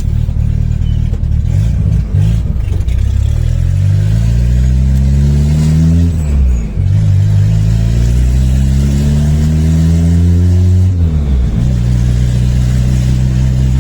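Turbocharged four-cylinder VW AP 1.9 engine of a Volkswagen Voyage pulling through the gears while driving: the revs climb steadily twice, each climb ending in a sharp drop at a gear change, then the engine holds a steady note.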